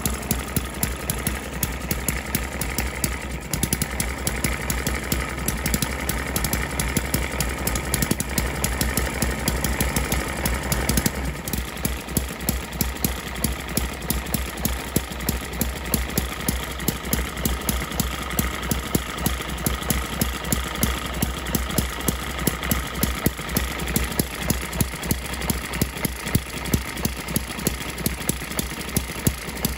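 Small model hit-and-miss engine (ET6, single cylinder with twin flywheels) running on its first start, a fast, even train of firing beats. The pattern of the beats changes about eleven seconds in.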